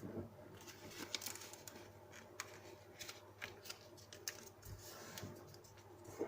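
A sheet of paper being folded and creased by hand: irregular soft rustles and crisp little crackles, several to the second.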